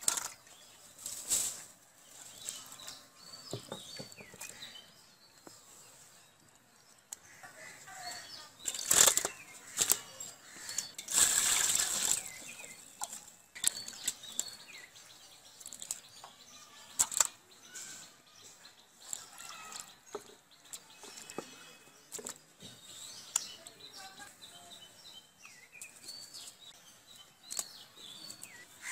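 Pieces of fish being washed by hand in a steel bowl of water: irregular splashing and sloshing, with wet knocks as pieces are handled and set down on a steel plate, and a louder, longer splash about eleven seconds in.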